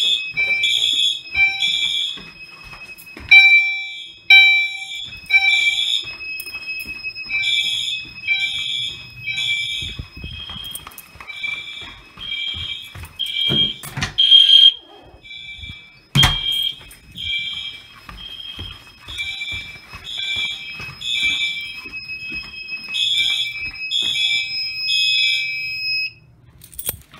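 Fire alarm system sounding in alarm, with high pulsed horn tones about twice a second over a steady high tone. It cuts off about a second before the end as the panel is silenced. A few sharp knocks are heard along the way.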